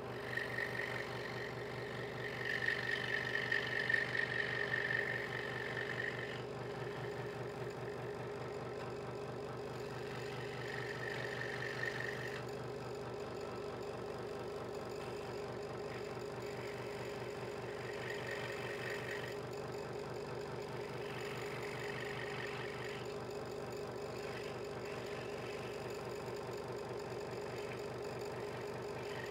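Hegner Multicut 2S scroll saw running steadily, its blade stroking fast up and down while cutting a small piece of wood. A higher rasp comes in spells as the blade bites into the wood, loudest in the first few seconds.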